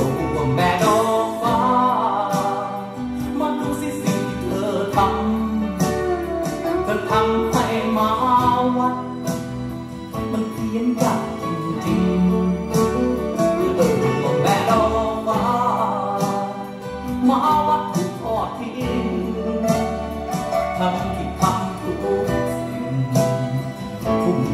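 A Thai song played from a vinyl record through hi-fi loudspeakers: a sung melody over band accompaniment.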